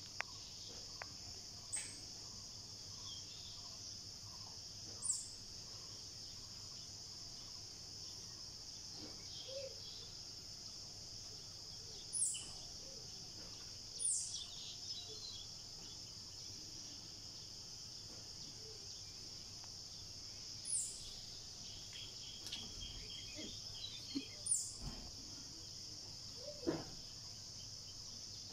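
A steady, high chorus of insects fills the forest. Over it a bird gives a short, high call that falls in pitch, about six times at uneven intervals, with a few fainter, lower calls near the end.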